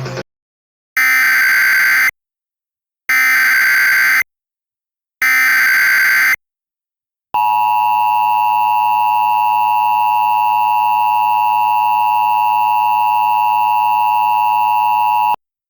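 Emergency Alert System tones: three bursts of SAME header data, each about a second long with about a second of silence between them, then the EAS two-tone attention signal, a steady tone held for about eight seconds that cuts off suddenly.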